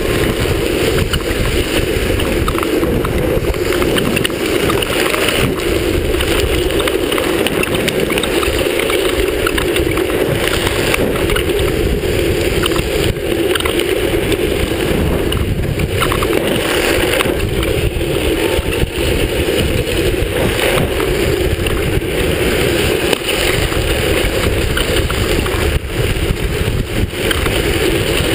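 Steady, unbroken rumble of a drift trike's hard wheels rolling and sliding on asphalt, mixed with wind buffeting the microphone at speed.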